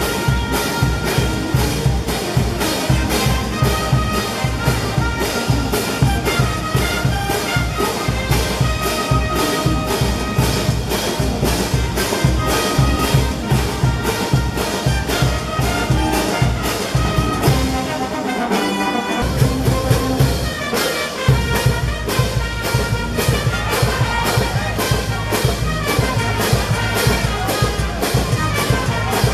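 Peruvian brass band playing: sousaphones, trumpets, trombones, saxophones and clarinets over bass drum, snare and hand cymbals, with a steady beat. About eighteen seconds in the bass and drums drop out for a couple of seconds before the full band comes back in.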